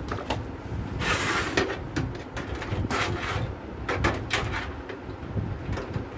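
Handling noises from fitting a motherboard into a metal PC cabinet: scattered clicks and short scraping bursts, the longest about a second in and others around three and four seconds, over a low steady background rumble.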